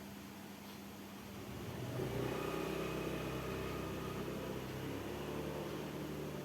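One long, rough snore that starts about a second and a half in and runs for about four seconds, shifting in pitch near its end.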